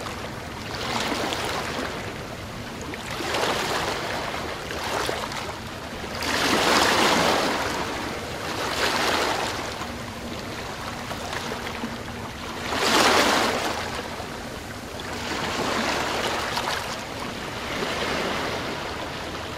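Ocean waves washing in, each swelling and fading every two to three seconds, the two biggest about a third and two thirds of the way through.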